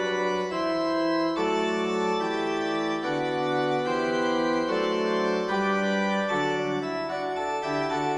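Instrumental music of sustained, organ-like keyboard chords, the chords changing about every second at an even level.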